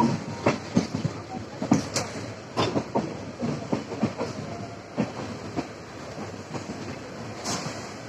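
Wheels of a moving passenger train clattering over rail joints and points while it pulls out of the station, heard from inside the coach: irregular sharp knocks and clicks over a steady rumble.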